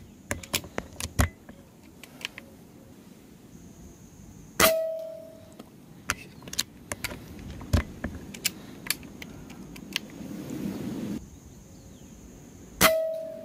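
Two shots from a GM10 PCP air rifle, about eight seconds apart, each a sharp crack followed by a short metallic ring, with smaller sharp clicks between the shots.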